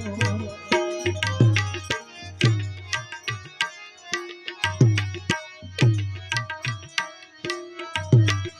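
Instrumental interlude of a Gujarati devotional folk song: a hand-drum rhythm of deep strokes that bend down in pitch, with crisp higher strikes, under a sustained melody line.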